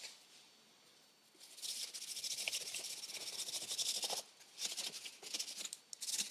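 Cloth rubbing briskly over a hard plastic controller casing, a dry scratchy hiss of quick back-and-forth wiping strokes. It comes in spells, starting after about a second and a half, with short breaks between them.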